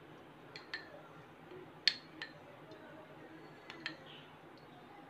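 A few light, sharp clinks of a spoon and a glass bowl of cooking oil being handled, the loudest a little under two seconds in, over a faint low hum.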